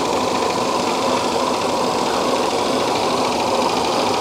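Shark IQ Self-Empty XL robot vacuum running as it drives itself to its dock: a steady whir from its suction motor and spinning brush rolls, with a faint steady whine.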